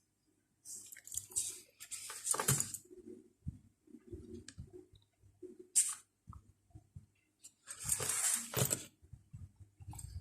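Scattered scratchy rustles and soft knocks of hand drawing work with a Chinese brush on paper: several short strokes, the longest about a second, with a longer stretch near the end.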